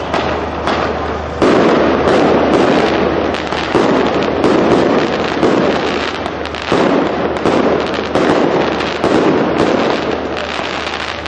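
Aerial fireworks: shells bursting one after another, a loud bang every second or two over a continuous din of smaller reports.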